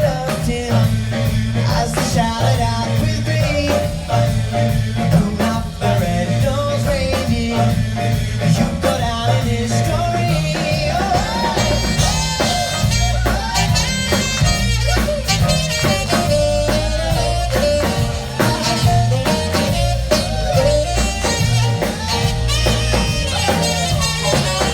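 Live amplified pop music from a vocal group and band: a steady bass and drum beat under a sung melody.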